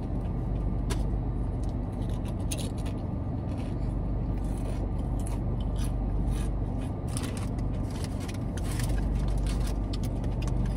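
Potato chips being crunched and chewed: a run of short, crisp crackles, thickest in the middle, over a steady low hum inside the car.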